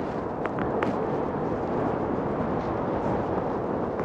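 Steady rushing wind and road noise on the microphone of a moving electric unicycle, with a few faint ticks about half a second in.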